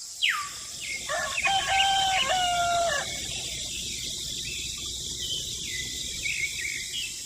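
A rooster crowing once, a call of about two seconds, over a steady high hiss.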